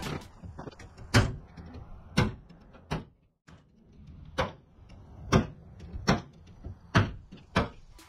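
Nails being driven into wooden roof sheathing: about eight sharp, loud strikes roughly a second apart.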